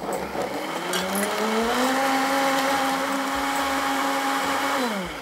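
Sencor blender motor running as it blends a drink: the whine rises in pitch over the first two seconds as it spins up, holds steady at speed, then drops as the motor winds down near the end.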